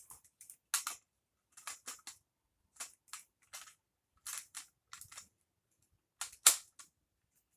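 Plastic clicks and clacks of a Lego brick rifle being worked by hand, mostly in quick pairs about every half second to a second, as its magazine is released, pulled and pushed back in during a reload; the loudest clack comes near the end.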